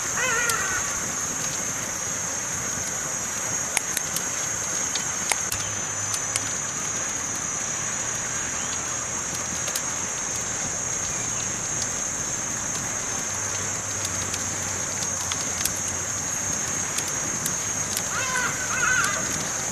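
Campfire burning with a steady high hiss and frequent sharp crackles and pops scattered throughout. Short wavering calls are heard right at the start and again near the end.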